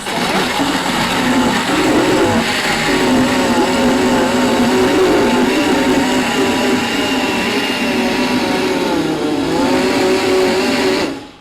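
Countertop blender motor running at speed, puréeing frozen bananas into soft-serve ice cream; its pitch wavers as the thick load shifts, and it cuts off just before the end.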